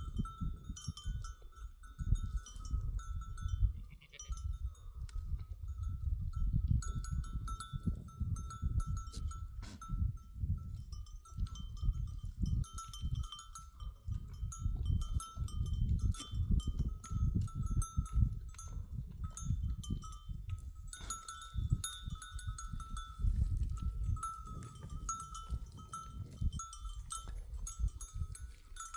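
Bells on a flock of goats and sheep ringing unevenly as the animals move, over a loud, uneven low rumble.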